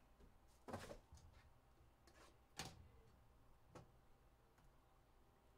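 Faint handling sounds of a cardboard trading-card hobby box being picked at and opened: a few soft knocks and scuffs, the clearest about a second in and past two and a half seconds.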